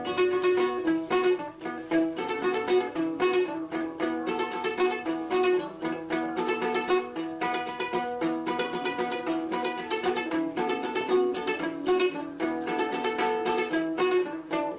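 Background music led by quickly plucked strings, with a fast, even run of notes.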